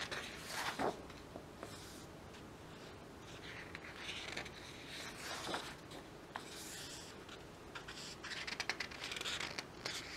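Thick glossy pages of a large photobook being turned and handled, heard as several separate paper rustles with a few light clicks.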